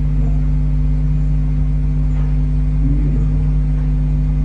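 Steady electrical hum with a low buzz and a few fixed low tones, typical of mains hum picked up by a nest-box camera's microphone.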